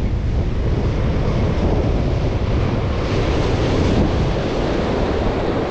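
Strong wind buffeting the microphone over surf breaking on a rocky shore, with a wave crashing and washing over the rocks about three seconds in.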